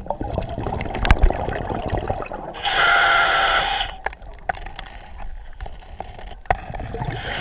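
Scuba diver breathing through a regulator underwater: one loud hissing rush of breath about two and a half seconds in, lasting just over a second, over a low rumble of water. A couple of sharp knocks about a second in.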